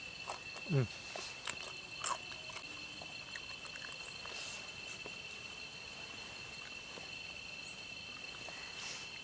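Steady, high, two-toned insect drone. About a second in there is one short, loud falling call, and a few faint crisp clicks are scattered through.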